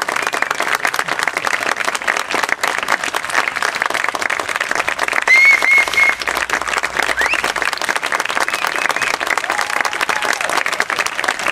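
Audience applauding steadily at a curtain call, with three quick high-pitched notes from the crowd about five seconds in.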